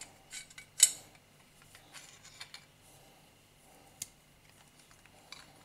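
Small metal plumbing fittings, a tap adapter and valve, clicking and clinking as they are handled and fitted together by hand: a sharp click about a second in, another near four seconds, with fainter taps between.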